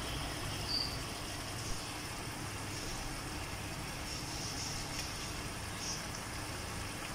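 Steady low background hum, with a few faint, soft sounds of a roasted eggplant being rubbed in water in a steel bowl as its charred skin is peeled off.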